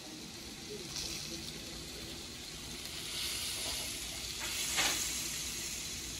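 Meat sizzling on a parrilla grill: a steady sizzle that swells briefly a couple of times.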